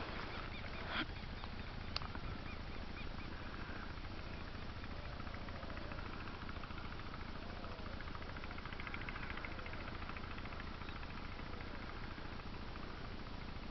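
Steady outdoor background noise with a low rumble, and two sharp clicks about one and two seconds in.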